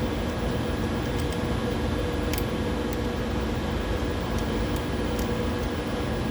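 Steady mechanical hum of running lab equipment with a few faint, short clicks scattered through it.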